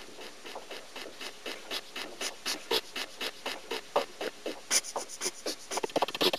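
Audience clapping after a speech, irregular claps a few per second that thicken into fuller applause near the end.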